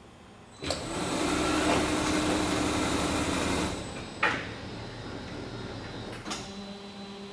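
Biesse Comil Performer TP case clamp machine running: a sudden rush of hissing mechanical noise with a steady hum for about three seconds, then a sharp click and a quieter hum, with another click near the end.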